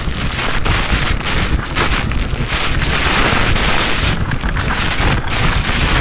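Düden waterfall pouring down at close range, a loud, steady rush of falling water with a deep rumble, and spray and wind buffeting the microphone. The sound drops out briefly a few times.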